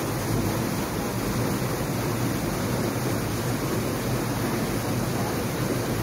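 Steady rushing of river water pouring over rock at the top of a waterfall, a constant even roar with no breaks.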